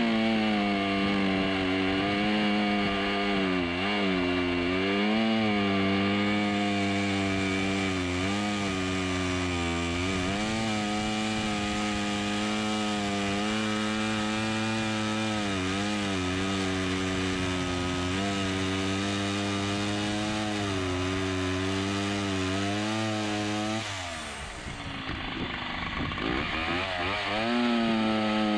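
Vintage Husqvarna 90 two-stroke chainsaw cutting through a log at full throttle, its engine note dipping briefly again and again as the chain bites into the wood. About 24 seconds in the engine slows for a few seconds, then revs back up and cuts again near the end.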